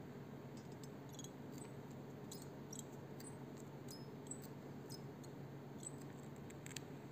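Faint scattered clicks and ticks as monofilament fishing line is handled and worked into the jaws of small cutting pliers, over a low steady hum.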